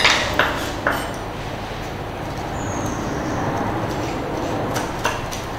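Kitchen knife chopping fresh basil on a wooden chopping board: a few quick strikes in the first second and a few more near the end, over a steady rushing background noise.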